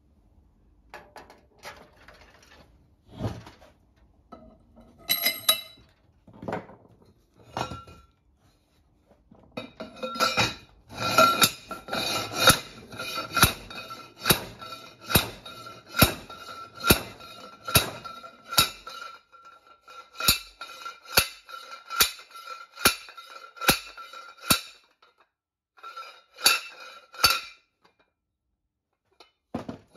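A steel pipe over a Chrysler 8 3/4 axle shaft slammed repeatedly against the heated new locking ring to drive it onto the shaft: a run of ringing metal clanks a little over one a second. A few scattered clinks and knocks come first.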